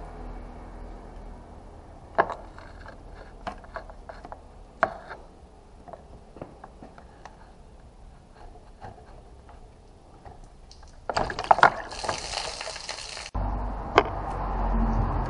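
Scattered metal clicks and taps from a screwdriver working a radiator hose clamp, with a denser scraping clatter for about two seconds near the end, then one sharp click.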